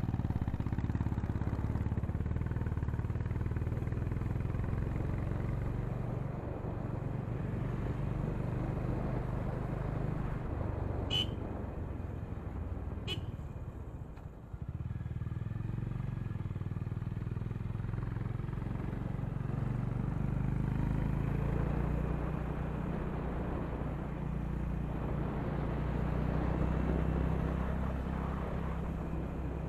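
Exhaust note of a Honda H'ness CB350's air-cooled single-cylinder engine, picked up close to the silencer while riding uphill. A horn beeps twice about a third of the way through, then the engine note dips briefly and picks up again.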